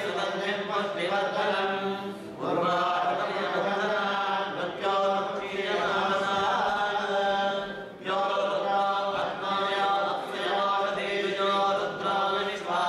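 Several men's voices chanting Vedic Sanskrit mantras together on a steady reciting pitch. The chant pauses briefly for breath about two seconds in and again near eight seconds.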